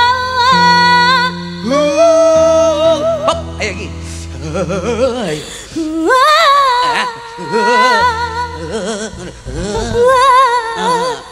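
Singing in campursari style: a voice holding long notes with a wide, regular vibrato and stepping between pitches, over accompaniment with steady held low notes.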